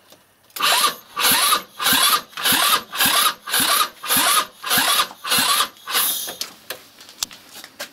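A scooter's 161QMK four-stroke engine being cranked over in about eleven short strokes, roughly two a second, each a brief rising whir. It is the first attempt to start the engine after a long lay-up, with fuel sprayed into the spark-plug hole, and it has not yet caught.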